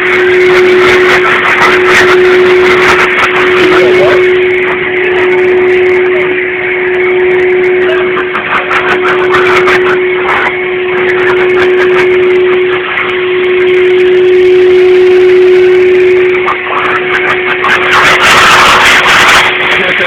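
Blow dryer running close by: a steady motor whine over the rush of air, which swells and dips, with scattered irregular clicks and knocks.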